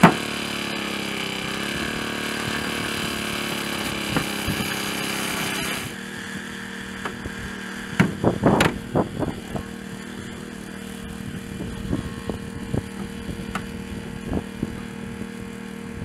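An engine running steadily, its pitch dipping briefly and recovering, then stopping abruptly about six seconds in. A cluster of loud knocks follows, then scattered lighter knocks.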